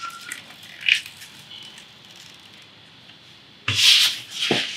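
A vinyl sticker being peeled from its backing with small scratchy crackles, then rubbed flat onto a fridge door by hand: a loud brisk rub a little before the end, followed by a shorter one.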